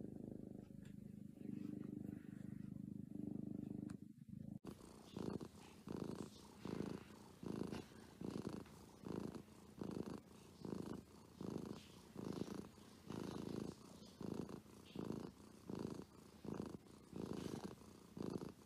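Kittens purring while being stroked: first a steady, unbroken purr, then, about four and a half seconds in, a different kitten's purr that swells and fades in a regular rhythm, about three pulses every two seconds.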